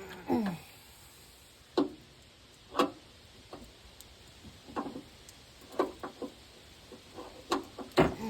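Hand tools clicking and clinking on a battery cable terminal and nut: short separate knocks, some briefly ringing, spaced roughly a second apart.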